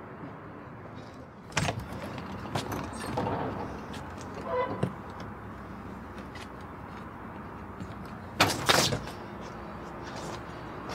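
An apartment door with a metal grille being worked: a sharp latch click, the door rattling, then two loud bangs near the end.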